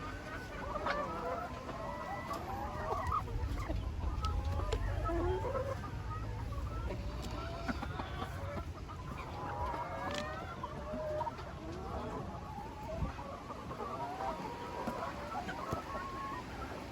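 A flock of laying hens clucking and calling over one another, with many short overlapping calls throughout. A low rumble runs under the first six seconds or so, and there are a few sharp clicks.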